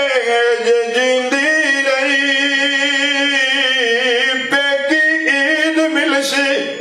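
A man singing devotional verse unaccompanied into a microphone, in long held, wavering notes broken by a couple of short breaths.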